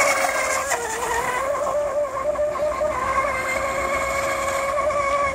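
Pure Evil RC hydroplane boat running flat out across the water, its motor giving a steady high-pitched whine that dips slightly in pitch about a second in and then holds.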